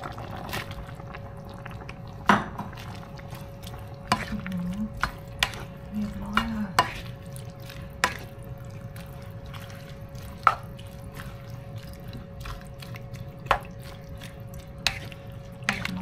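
A ladle stirring blanched sea kale and shrimp through simmering gravy in a dark nonstick pan: liquid sloshing, with about ten irregular sharp knocks of the ladle against the pan. A steady faint hum runs underneath.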